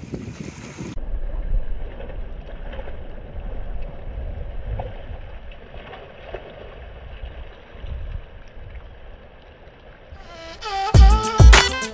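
Wind buffeting the microphone over choppy lake waves washing against a concrete shore, a steady noisy rumble. About eleven seconds in, loud music with a heavy beat and plucked notes comes in.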